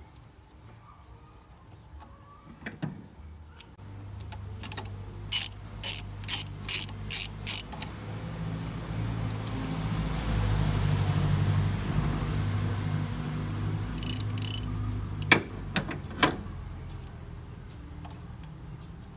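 Hand ratchet wrench clicking in a quick series of strokes, then a few more strokes later, as bolts are run back in during reassembly. A low rumble swells up and fades behind it.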